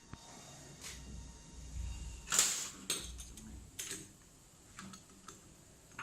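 Scattered clicks and knocks of metal parts and tools being handled while a CNC router spindle is reassembled after a bearing replacement, the loudest knock about two and a half seconds in.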